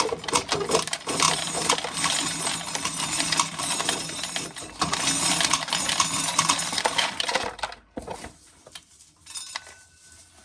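Corn sheller stripping dry kernels from a cob, the kernels rattling and clinking in a dense stream into a container, with a steady low hum under it. The clatter stops about eight seconds in, leaving a few scattered clinks.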